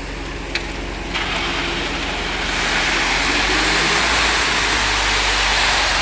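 Ready-mix concrete truck running with its engine at a steady low hum while it discharges concrete. A rushing, scraping noise of concrete sliding down the chute builds about a second in and grows louder from about two and a half seconds.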